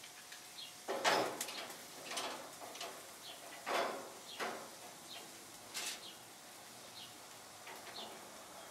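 Metal spatula scraping and knocking on the grates of a gas grill as meat is turned, several separate scrapes, the loudest about a second in. Small birds chirp faintly in the background.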